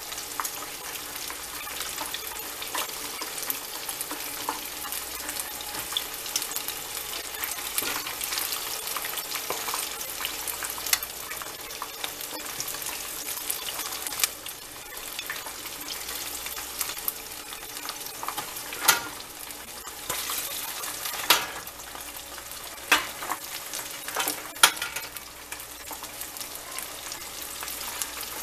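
Chicken wings deep-frying in a pot of hot oil: a steady crackling sizzle as the pieces are stirred and turned with metal tongs. A few sharp clicks stand out in the second half.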